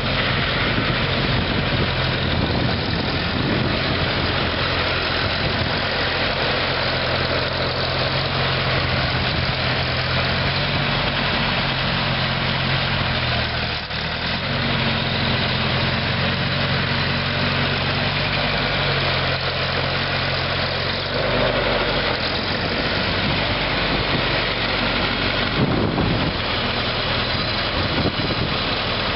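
Minneapolis Moline Super M670 tractor's four-cylinder propane engine running steadily at idle. Its note dips and shifts briefly about halfway through, and changes again a few seconds later.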